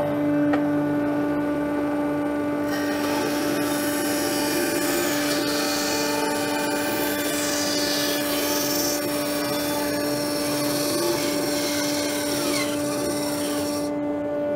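Atika BS 205-2 benchtop band saw's 250 W motor running with a steady hum. From about three seconds in, the blade saws through a 45 mm ash board with a loud rasping noise. The rasping stops shortly before the end, when the blade gets stuck in the cut.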